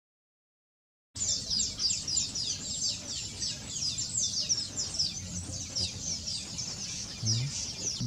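About a second of silence, then a colony of golden palm weavers chattering: many overlapping, quick, high notes that slide downward, in a continuous busy stream.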